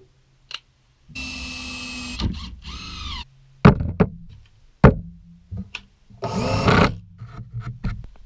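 Cordless drill driving screws into lumber: two runs of the motor, the first longer and steady before its pitch bends, the second shorter, with a few sharp wooden knocks between them and light clicks near the end.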